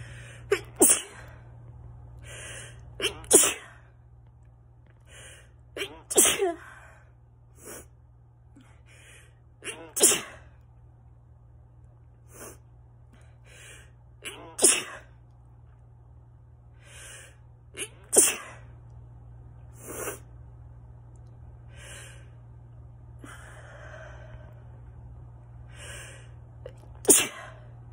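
A person sneezing over and over in a hay-fever fit: more than a dozen sharp sneezes a few seconds apart, some coming in quick pairs.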